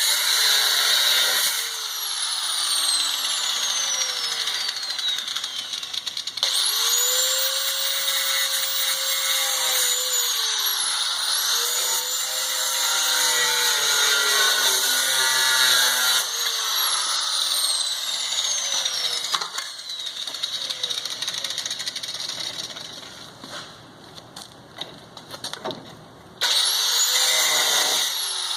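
Angle grinder cutting rusted sheet steel on the truck body: it spins up to a steady high whine with a gritty cutting noise, is released and whines down, about four times.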